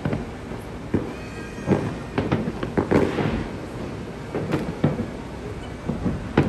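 Fireworks going off: a string of irregular loud bangs, a dozen or so in about six seconds, with a burst of crackle about three seconds in.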